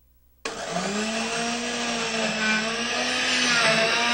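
Countertop blender switched on about half a second in, its motor spinning up in pitch and then running steadily as it purees pear, radish, onion and apple in vegetable broth.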